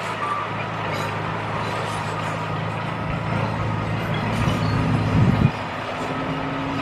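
Diesel engine of a heavy earthmoving machine running steadily. About four and a half seconds in it grows louder and rises in pitch, drops off suddenly a second later, and then settles to a steady, slightly higher hum.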